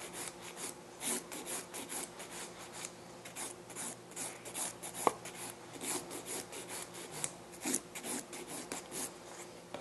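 A 180-grit Zebra nail file rasping back and forth over the surface of an acrylic nail in quick, even strokes, about three or four a second. A single sharp click about five seconds in.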